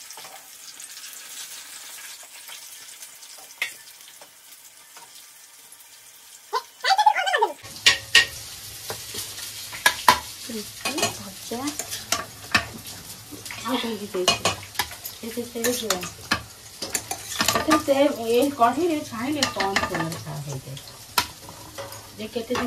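Battered pumpkin-flower fritters sizzling softly as they fry in oil in a steel pan. After about seven seconds it cuts to steel plates, bowls and spoons clinking and clattering repeatedly, over a low hum.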